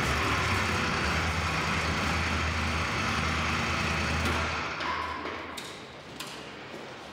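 Motorcycle engine running steadily, then fading about five seconds in as the bike pulls away, with a couple of light clicks near the end.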